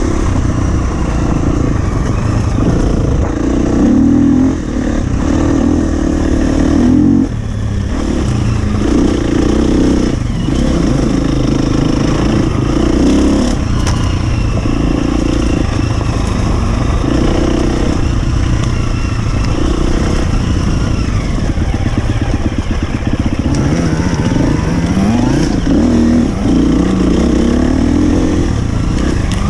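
Husqvarna FE 250 single-cylinder four-stroke enduro engine under hard riding, the throttle opened and shut again and again every second or two, with the pitch climbing in a few quick runs up the revs near the end.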